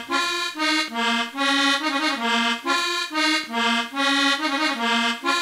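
Recorded cumbia music: an accordion playing a bouncy melody of short, evenly paced notes, about three a second, with hardly any bass underneath.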